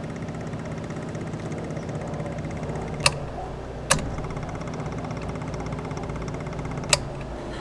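Predator 670 V-twin engine on a Mud Buddy surface-drive mud motor idling steadily, fed by an aftermarket electric fuel pump. Three sharp clicks sound over it, about three, four and seven seconds in.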